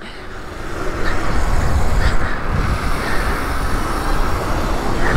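Wind rushing over the microphone and tyre noise while riding an electric mini moto at speed. It builds over the first second as the bike speeds up, then holds steady, a heavy low rumble with no engine note.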